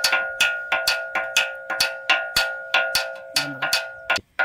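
Improvised hand percussion struck with a stick, a steady beat of about four strikes a second, each ringing on with a bell-like tone. The strikes stop shortly before the end.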